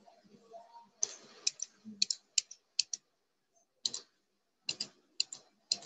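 A series of sharp computer clicks, about a dozen, many in quick pairs, made while controlling a video player on a computer.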